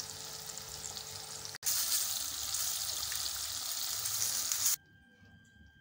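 Oat-coated chicken pieces deep frying in hot oil: a steady crackling sizzle. It breaks off for an instant about a second and a half in, comes back louder, then cuts off suddenly near the end.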